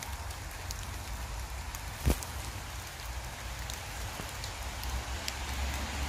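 Steady rain falling, with scattered drip ticks and one sharp click about two seconds in, over a low steady rumble.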